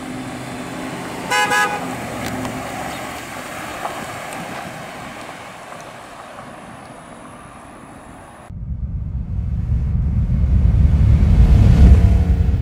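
A stretch limousine's horn toots once, briefly, about a second and a half in, over the low steady sound of the car being driven. About two-thirds of the way through, this cuts off abruptly to a deep sound effect that swells in loudness under an animated logo.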